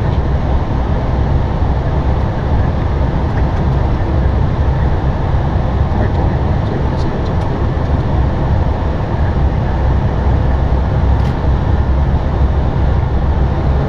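Steady cabin noise inside an Airbus A320 cockpit during descent: airflow over the airframe and the engines running, heavy at the low end and unchanging.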